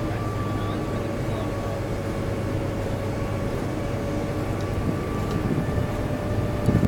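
Distant DR class 44 three-cylinder freight steam locomotive 44 1486-8 starting off on a staged run-past, heard as a steady low rumble with a thin steady whine over it. A few louder low thumps come near the end.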